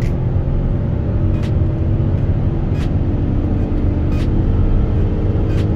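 Citroën Berlingo van's 1.2 PureTech three-cylinder turbo petrol engine running steadily under way, with road and tyre noise inside the cabin. Faint clicks come about every second and a half.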